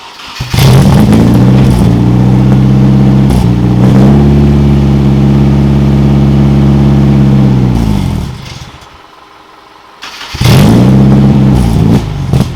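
Nissan KA24DE four-cylinder engine firing up and running for about seven seconds, then dying with its pitch falling away. About two seconds later it fires again, runs briefly and falters near the end. The stalling is what the owner suspects comes from ignition timing that is still off.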